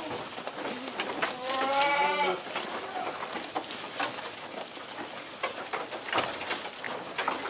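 A goat bleats once, a wavering call of about a second, starting about a second and a half in. Throughout, there is crisp rustling and crunching as goats tear at and chew fresh leafy branches in a trough.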